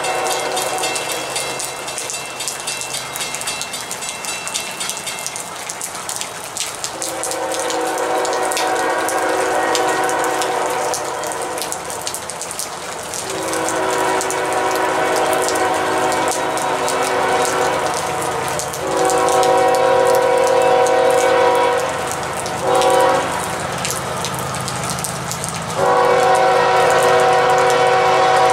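Diesel locomotive's air horn sounding a multi-note chord in a series of long blasts, then a short blast and a long one near the end, the long-long-short-long pattern sounded for a grade crossing. It grows louder as the train approaches, with steady rain hiss underneath.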